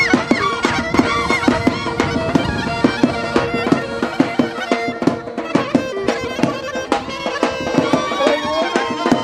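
Instrumental traditional folk dance music: an ornamented lead melody over a steady held drone, with a regular drumbeat.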